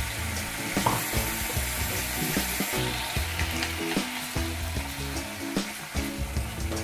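Marinated beef sizzling in hot oil in a frying pan: a steady frying hiss with scattered crackles. Background music plays underneath.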